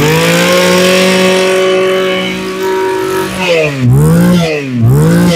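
Mitsubishi TB 27cc two-stroke brush cutter engine, freshly started, revving. The throttle opens right at the start and is held high and steady for about three seconds, then is let off and reopened three times, the pitch dropping and climbing each time.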